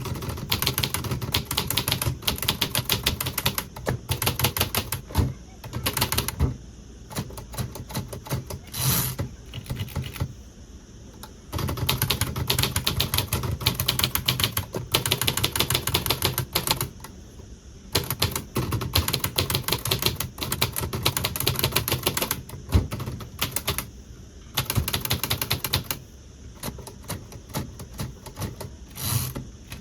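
Hispano Olivetti Studio 46 manual portable typewriter being typed on: runs of rapid, sharp key strikes lasting a few seconds each, broken by short pauses.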